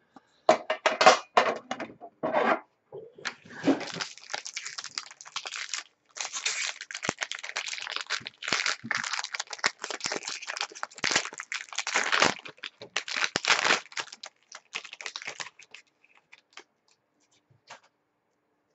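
Foil wrapper of a hockey card pack crinkling and tearing as it is opened, a dense crackle that stops about three seconds before the end, leaving a few faint taps.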